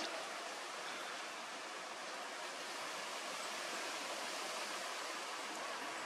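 Steady, even hiss of background noise, with no bird calls or other distinct sounds standing out.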